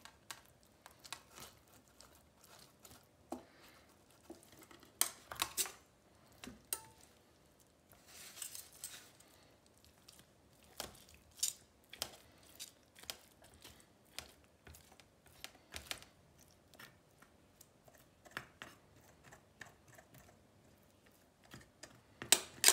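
Metal spoon and tongs clinking and scraping against a stainless steel bowl as boiled chicken meat is pulled off the carcass: scattered light irregular clicks, with a few longer scrapes.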